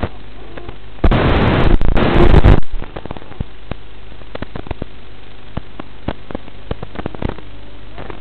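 Static from the audio channel of an analog FPV video receiver recorded by the Foxeer DVR: a steady hiss crackling with frequent sharp clicks, and a loud burst of harsh static from about one to two and a half seconds in.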